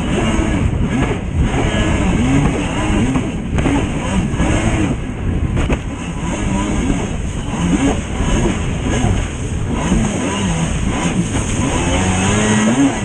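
Yamaha WaveBlaster personal watercraft's two-stroke engine running hard at race speed, its pitch rising and falling again and again as the throttle works over the chop. The rush of wind and spray runs under it.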